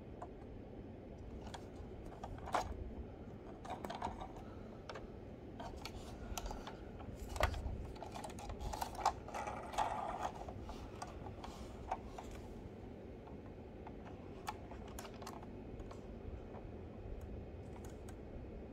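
Irregular light clicks and taps of a 1:18 diecast model car being handled and turned over a display base. The clicks are busiest in the first two thirds and thin out toward the end.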